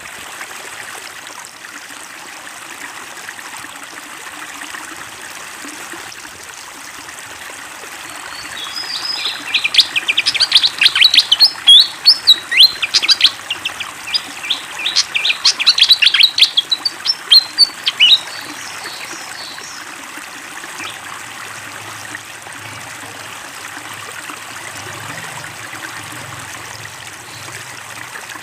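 A fantail sings a rapid, loud run of sharp chirping notes for about nine seconds, starting a third of the way in. Underneath, water trickles steadily throughout.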